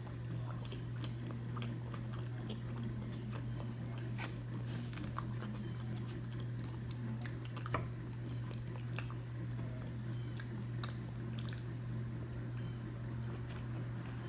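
A person chewing char-broiled oysters, with scattered small clicks and smacks of eating and handling the food, one sharper click near the middle. A steady low hum runs underneath.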